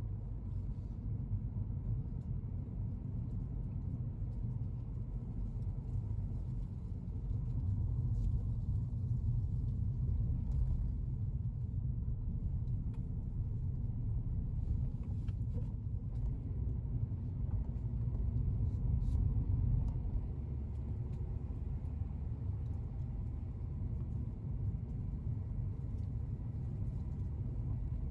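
Car driving along a road: a steady low rumble of engine and road noise, rising slightly in level at times, with a few faint ticks.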